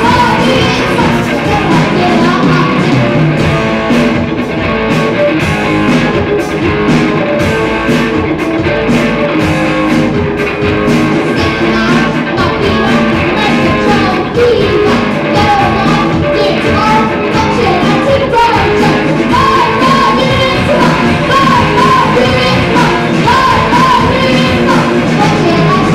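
A rock band playing live: electric guitars, bass guitar and a drum kit keeping a steady beat, with a singer's voice over them.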